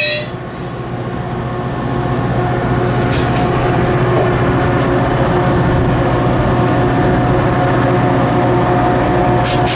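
Caltrain passenger train coming to a stand: the high wheel and brake squeal cuts off just as it stops, then the train's diesel runs with a steady hum that swells over the first two seconds and holds. Short hisses come about three seconds in and again near the end.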